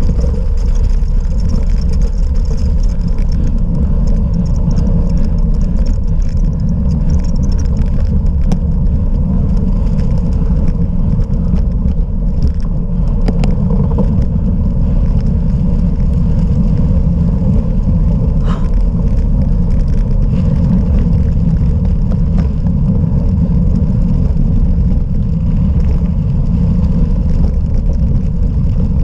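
Cyclocross bike riding over rough off-road ground: a loud, steady rumble of wind on the microphone and tyres rolling, with scattered clicks and rattles from the bike.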